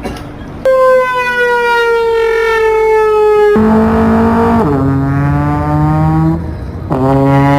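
Trombone playing three long held notes as a comic sound effect. The first slides slowly downward, the second drops to a low pitch partway through, and the third begins near the end.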